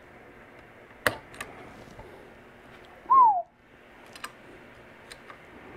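Light metallic clicks of AR-15 trigger and hammer parts being worked into a lower receiver: a sharp click about a second in, another just after, and two more near the end. About three seconds in comes the loudest sound, a short falling hoot from a person.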